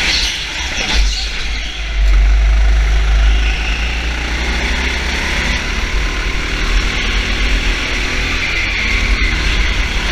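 A motor vehicle's engine running steadily over a heavy low rumble. It gets louder about two seconds in.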